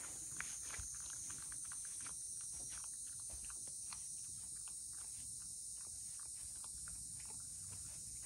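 Cat licking a Churu lickable treat from a small bowl: a quick run of small wet tongue clicks, several a second, over a steady high hiss.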